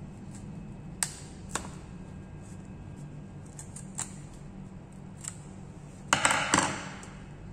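Plastic retail packaging of a RAM module being forced open: a few sharp plastic clicks, then a loud crackling rip and snap of the plastic about six seconds in as the seal gives way.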